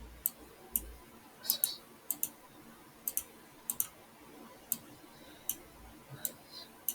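Computer mouse clicking: sharp single clicks and quick double clicks at irregular intervals, about fifteen in all.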